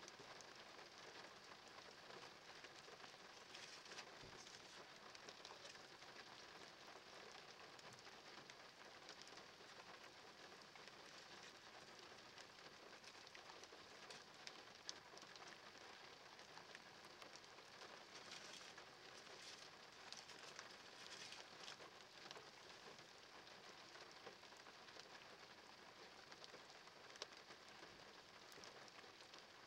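Light rain falling, a faint steady patter with an occasional single drop ticking.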